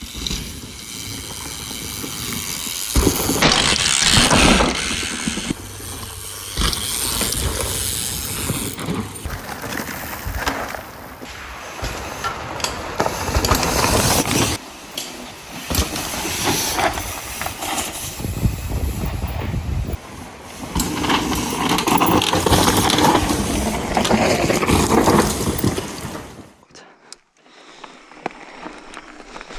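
Hardtail mountain bike ridden fast down a dry dirt trail: tyre noise and rattling with wind on the microphone, in several short clips that change abruptly.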